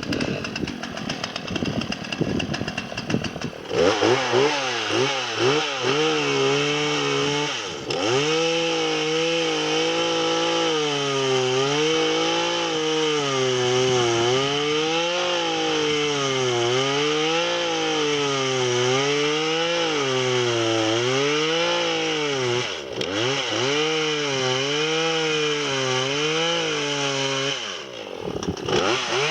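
Chainsaw cutting under load, its engine pitch rising and falling in a slow, even sway as the chain bites. It dips briefly twice and eases off near the end. The chain has its rakers ground right down and its cutting teeth filed from a chisel shape to a knife edge, and it is cutting well.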